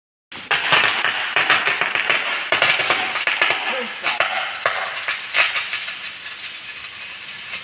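Water jet from a hose reel nozzle spraying and splattering, a hissing rush full of crackles. It starts abruptly just after the beginning and grows gradually quieter.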